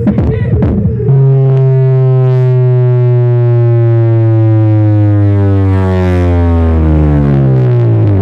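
A car sound system's subwoofers holding a loud, steady low bass tone for an SPL measurement, after about a second of thumping bass music. The tone slides slowly down in pitch toward the end and cuts off abruptly. The burst is read at 148.6 decibels.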